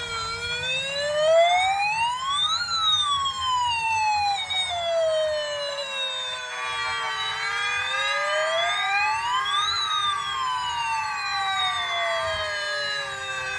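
Electronic wailing siren of a toy police car. Its pitch rises over about two seconds and falls more slowly over about five, twice over, above a steady lower tone.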